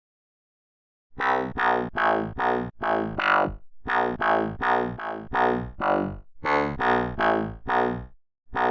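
FM synthesizer bass patch in Sytrus playing a run of short notes, about two a second, starting about a second in. Each note has a bright band-pass-filtered 'whip' character.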